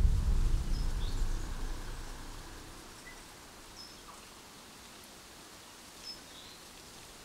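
A music ending fades out over the first couple of seconds. It leaves faint outdoor ambience with a few short, high bird chirps scattered through it.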